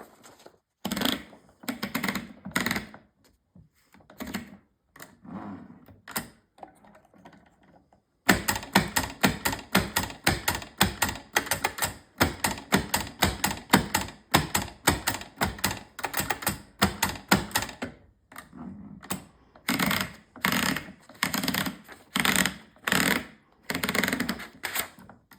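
AEG Mignon 4 index typewriter (1925) typing: sharp mechanical clacks as letters are struck. After some scattered strokes, a fast, dense run of strokes starts about eight seconds in, then gives way to spaced groups of strokes.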